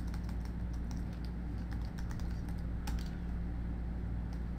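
Computer keyboard keys tapped now and then, a scattered handful of short clicks with one sharper click about three seconds in, over a steady low electrical hum.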